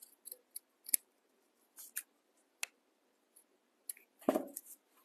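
Scissors snipping through fabric in short, irregular cuts while small web-foot pieces are cut out, with a louder cluster and a knock near the end.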